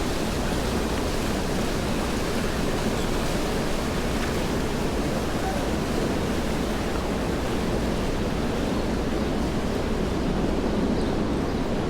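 Steady city street ambience: an even wash of traffic noise with no distinct events.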